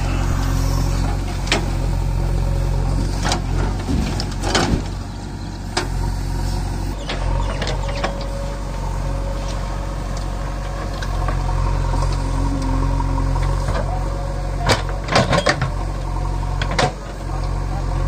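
JCB 3DX backhoe loader's diesel engine running steadily under load while the backhoe digs and dumps soil. Several sharp knocks come from the digging, with a quick cluster of them near the end.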